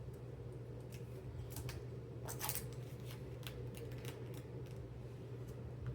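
Paper and banknotes being handled: faint, scattered crisp ticks and rustles over a low steady hum.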